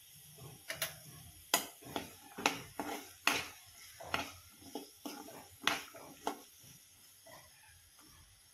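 Steel spoon stirring green peas and masala in a kadhai: an irregular run of clicks and scrapes against the pan that dies away about six and a half seconds in.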